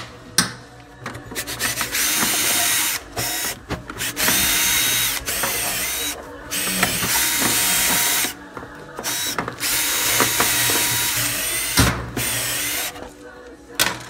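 Cordless drill-driver running in several short runs of one to three seconds, with pauses between, backing screws out of the plastic housing of a cordless stick vacuum.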